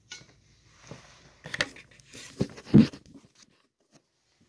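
Handling noise from the phone and a soda can: rustling and a few knocks, the loudest a dull thump nearly three seconds in.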